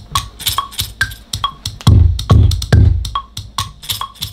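A beat made only from sampled car-key sounds, played back from studio monitors: a steady rhythm of sharp clicky hits with short pitched pings, joined about two seconds in by a heavy, deep kick.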